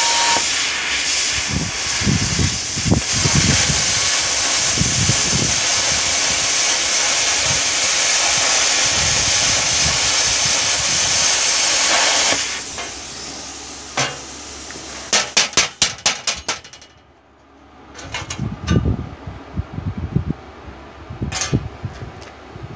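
Hand-held plasma cutter, run at 38 amps on 75 psi air, cutting through steel plate: a loud, steady hiss of the arc and air jet for about twelve seconds, which cuts off suddenly when the cut is done. After it comes a quick run of sharp pulses, and a few knocks near the end.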